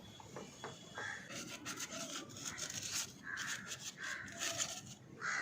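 A motorcycle chain being scrubbed clean: irregular rasping rubbing strokes.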